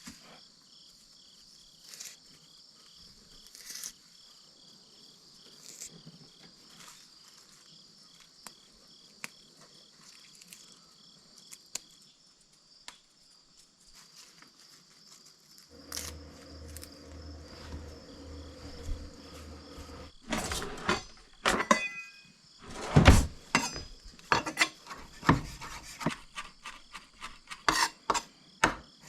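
Crickets chirping in a steady pulsing trill with a few light clicks; about sixteen seconds in, a low steady hum sounds for about four seconds. Then a run of sharp clatters and knocks, like cutlery and dishes handled and set down, is the loudest part.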